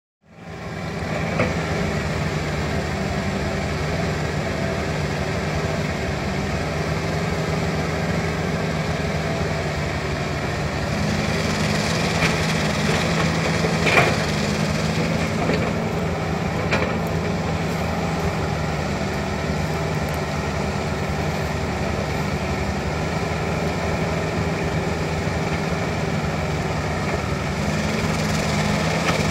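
Diesel engine of a backhoe excavator running steadily, fading in at the start, with a few sharp knocks about halfway through.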